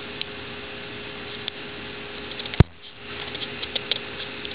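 Light rain falling: a steady hiss with scattered small drip ticks, over a faint steady hum. One sharp click sounds about two and a half seconds in.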